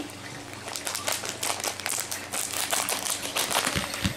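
Plastic blind-bag wrapper crinkling as it is handled and opened, a dense run of small crackles.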